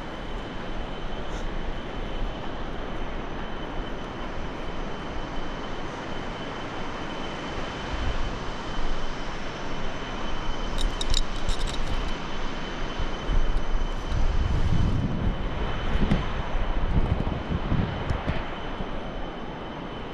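Wind rushing over the microphone of an arm-mounted action camera while hanging and swinging on a bungee cord, a steady noise with low gusts buffeting it in the second half. A few light clicks come about eleven seconds in.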